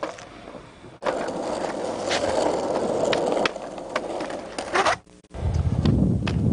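Skateboard wheels rolling on concrete, with several sharp clacks of the board and trucks hitting the concrete. The sound drops out briefly about five seconds in, then a louder, low rolling rumble follows.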